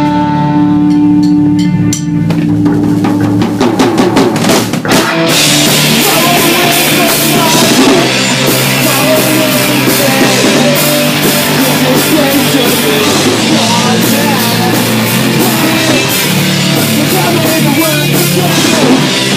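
A hardcore punk band playing live in a room: electric guitar, electric bass and a drum kit. Held notes ring for the first couple of seconds, a few separate hits follow, and about five seconds in the full band comes in and plays hard.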